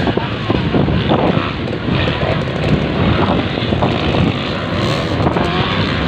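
Dirt bike engines racing on a motocross track, several at once, their pitch rising and falling as the riders open and close the throttle.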